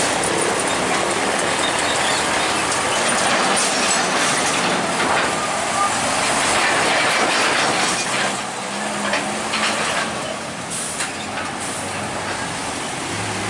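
Hino Ranger diesel tractor unit with a loaded flatbed semi-trailer passing close by at low speed, its engine and tyres making a loud steady rush. Clatters and knocks come as the wheels run over the level-crossing rails, and a short burst of hiss follows near the end.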